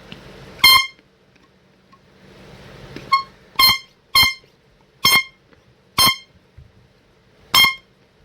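Cheap hand-pump plastic air horn sounding seven short, loud, high-pitched blasts at uneven intervals, the second one weaker. Between blasts a rushing hiss builds as the horn is pumped up.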